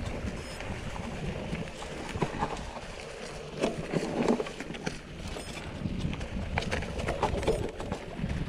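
Mountain bike ridden over a rough trail: tyres rolling on dirt and rocks with a steady rumble, and irregular knocks and rattles from the bike over bumps.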